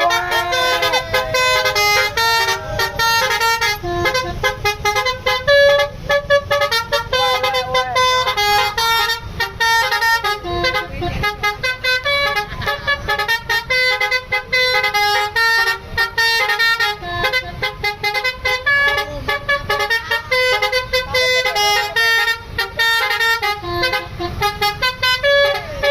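Indonesian bus 'telolet basuri' multi-tone musical horn playing a long, fast melody, one short note after another in quick steps of pitch.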